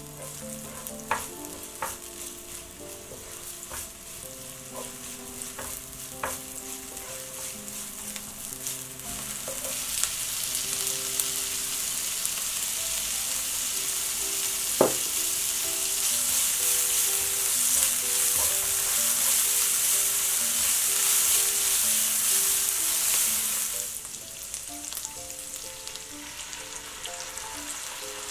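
Green onions sizzling in hot oil in a pan, stirred with a silicone spatula that taps the pan a few times. About ten seconds in, bacon strips go into the oil and the sizzle becomes a much louder, steady hiss, then drops back to a quieter sizzle near the end. Soft background music plays underneath.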